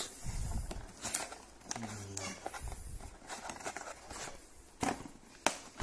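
Cardboard box flaps being pulled open by hand: rustling and scraping of cardboard, with a few sharp snaps. A short murmur of a voice comes about two seconds in.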